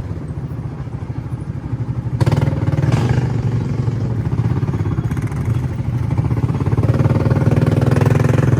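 ATV (quad bike) engine running steadily while riding, getting louder about two seconds in, with a couple of knocks around then.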